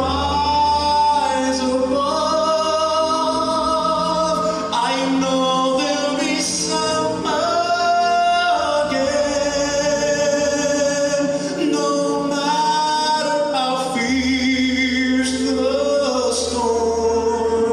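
A man singing a Christian ballad into a handheld microphone over instrumental accompaniment, holding long notes that bend and waver in pitch.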